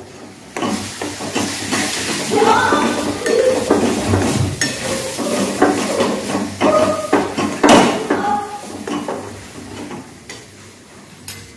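Onions and ground spices being stirred and scraped in a pot as they fry, with irregular clinks of the utensil against the pot and a sizzle. The clatter thins out near the end.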